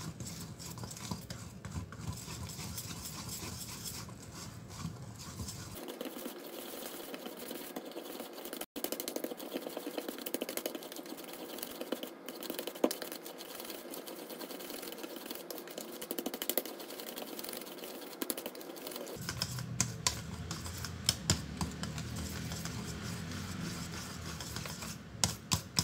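Hand wire whisk stirring thick pandan sponge-cake batter in a stainless steel bowl: a quick, uneven run of light clicks and scrapes as the wires strike the bowl, working freshly sifted flour into the batter.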